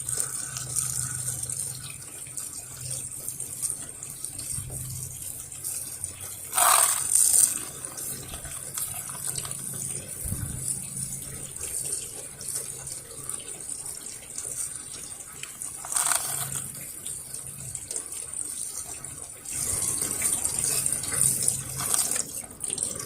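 Low-pressure water from a hose spraying onto a skylight to rinse it, a steady hiss with a few brief louder surges, the first about seven seconds in.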